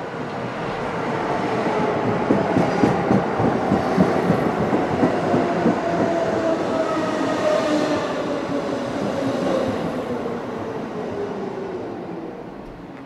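Hamburg U-Bahn DT3-series train pulling into the station. Wheels clatter over the rail joints as it passes, and a motor whine slides steadily down in pitch as the train slows.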